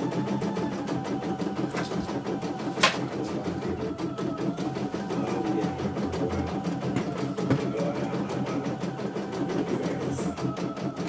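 CNY E900 computerized embroidery machine stitching out a design, the needle running at a rapid, even stitch rhythm as the hoop carriage moves. One sharp click about three seconds in.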